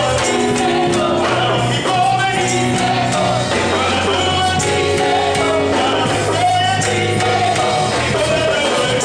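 Gospel music: singing over a steady band accompaniment with tambourine.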